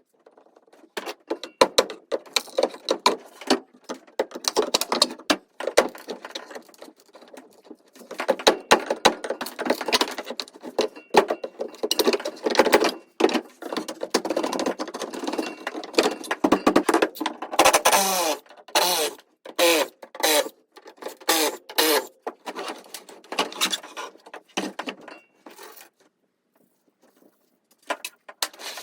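Irregular knocking, clattering and scraping, with short creaks, as a wooden bench and storage box is pried apart inside an aluminum boat. The work goes quieter near the end.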